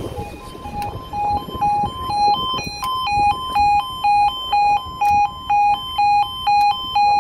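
UK level crossing warning alarm sounding: a two-tone electronic yodel switching between a lower and a higher note about twice a second, getting louder about two seconds in. It signals that the crossing is closing for an approaching train.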